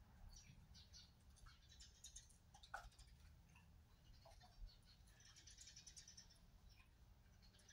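Near silence: quiet room tone with faint, scattered small clicks and rustles.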